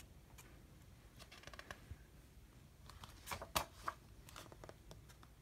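Faint rustling and soft clicks of paper as a page of a picture book is turned by hand, the loudest rustle about three and a half seconds in.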